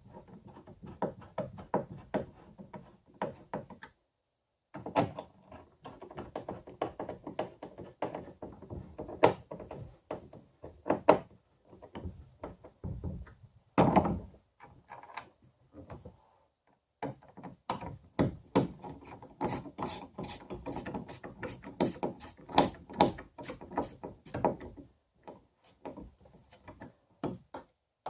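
Screws being turned in with a short-handled Phillips screwdriver on a kayak rudder control mount: a dense run of clicks and rattles, broken by short pauses, with a quicker, more regular clicking in the second half.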